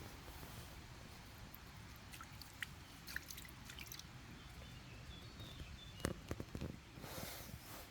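Faint outdoor background with a low rumble, scattered small clicks and short high chirps. There is a sharper click about six seconds in and a brief rustle near the end.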